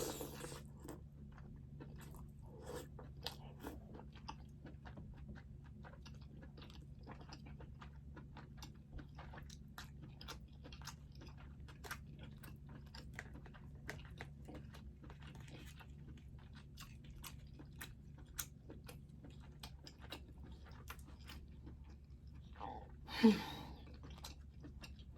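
A person chewing and smacking food close to the microphone, mukbang-style: a steady run of small wet clicks and crunches, with one brief louder sound near the end.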